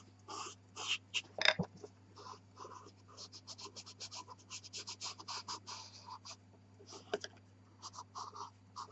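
White pastel pencil scratching over velour pastel paper in a run of short, quick strokes, several a second, with one brief louder sound about a second and a half in.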